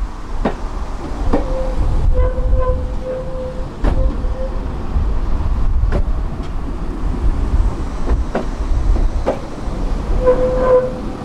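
Tram running along its track with a steady low rumble, broken by about ten sharp knocks from the wheels on the rails at uneven spacing. A steady whining tone comes in about a second in and holds for some three seconds, then returns near the end.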